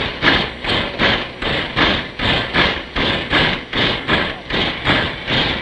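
Steam locomotive chuffing in a steady, even rhythm of about five beats every two seconds.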